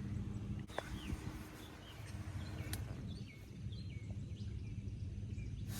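Birds calling: a series of short chirps, each falling in pitch, over a steady low hum, with one sharp click near the middle.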